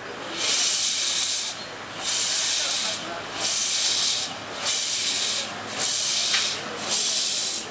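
X-class steam locomotive moving slowly with its cylinder cocks open, giving loud rhythmic bursts of steam hiss about once a second, each burst in time with a piston stroke.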